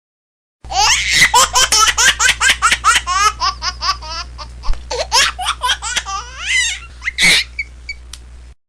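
Laughter sound effect: a high-pitched run of quick laughs, about four or five a second, thinning out near the end, over a low steady hum. It starts half a second in and cuts off abruptly.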